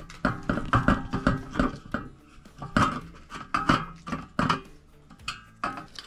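Irregular sharp clicks and knocks of metal parts of a floor fan's stand as it is screwed together with a screwdriver, some with a brief ring.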